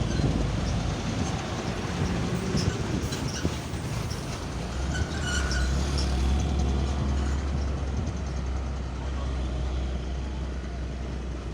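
Motor vehicles running, a steady low engine rumble that grows stronger about halfway through, with a few faint clicks and a brief high tone in the middle.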